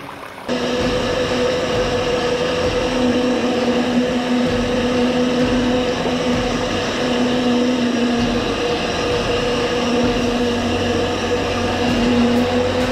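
Electric drive motor and gears of the King Kong RC Lurker, a 1/10-scale amphibious RC vehicle, whining steadily at a fairly constant pitch under throttle, heard up close from inside its cab. The pitch rises slightly near the end.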